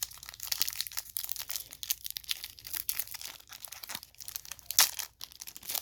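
Foil trading-card pack wrapper crinkling and tearing as it is handled and opened, a dense run of crackles with one sharper crack near the end.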